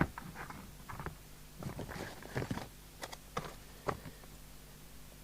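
Scattered light clicks and taps, about half a dozen over the first four seconds, from handling equipment on a workbench, over a faint steady electrical hum.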